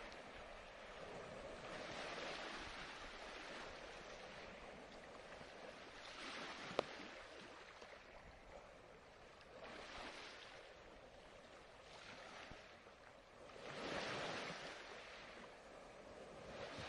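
Ocean surf: waves wash in and draw back in slow swells about every four seconds. A single sharp click comes about seven seconds in.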